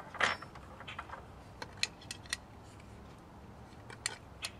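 Small metal clicks and taps as nuts are worked off the shaft of a sheet-metal whirligig propeller by hand, with a short scrape just after the start.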